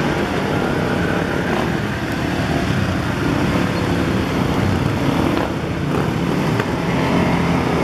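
Several dirt bike and quad ATV engines running as they ride slowly past, a steady mix of engine noise.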